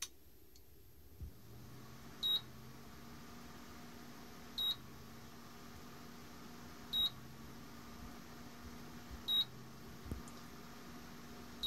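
Induction cooktop control board giving short, high error beeps, five of them a little over two seconds apart, while the display shows error code E1. Its cooling fan starts about a second in and runs with a low hum, slowing briefly at each beep.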